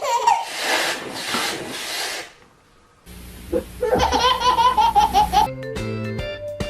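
A baby laughing heartily in two stretches, the second a quick run of giggles, with a brief pause between; music takes over near the end.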